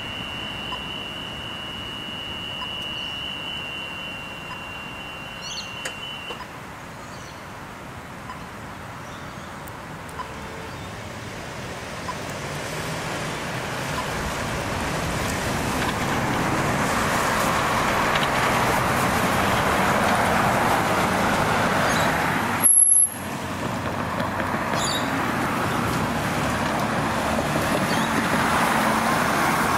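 Road traffic driving over a level crossing once the boom gates are up: cars passing, starting quietly and building to a steady rush of tyres and engines by about halfway. A steady high tone sounds at the start and stops about six seconds in.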